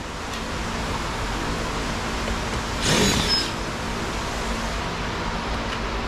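A cordless drill-driver spins up briefly, for about half a second, about halfway through, over a steady background hum.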